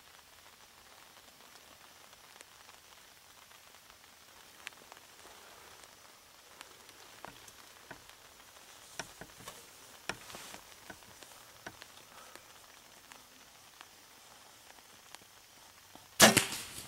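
Light rain pattering on leaves, with scattered drops ticking. Near the end, a sudden loud crack as a Mathews compound bow is shot at a doe.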